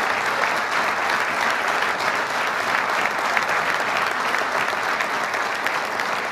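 Audience applauding: many hands clapping in a dense, steady patter that holds at an even level throughout.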